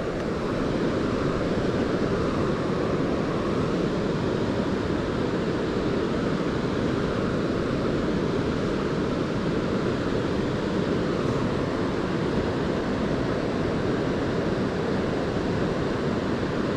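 Steady rush of a river's current, an even noise with no breaks or changes.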